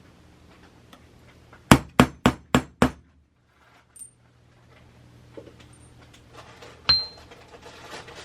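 Hammer striking a metal letter stamp on a blank taped to a bench block: five quick, sharp blows about two seconds in. Near the end there is one more sharp metallic clink with a short high ring.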